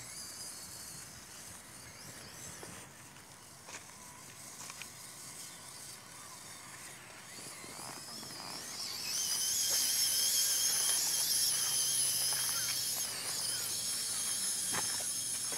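Radio-controlled Losi Night Crawler rock crawler's electric motor and gear drive whining as the truck crawls over gravel and rock: a thin high whine that rises a little and gets much louder about nine seconds in, then holds steady. Scattered clicks of stones and tyres run through it.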